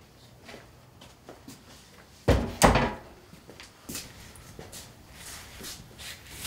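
A door closing with two heavy thumps in quick succession a little over two seconds in, followed by a few lighter knocks.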